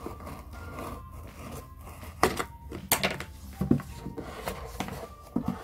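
Scissors snipping through a sticker seal on a cardboard mailer box, then the box being handled, with a few sharp taps and knocks and some rubbing of cardboard.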